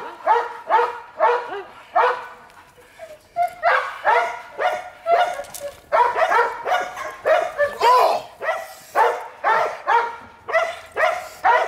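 Young dog barking steadily and repeatedly, about two sharp barks a second, at a decoy during protection bite training.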